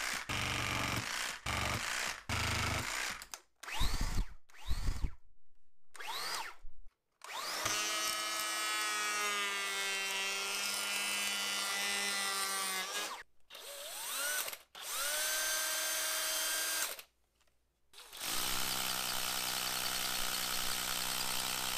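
Cordless power tools run in turn: a reciprocating saw cutting through a 2x4 in short, choppy stretches, then several brief motor spin-ups with a rising whine. A Bosch electric planer runs steadily while shaving the board. After a second of silence, a Bosch 18V hammer drill drills into a concrete wall and runs steadily to the end.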